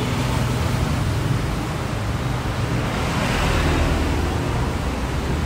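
Steady rushing background noise with a low hum underneath; no single event stands out.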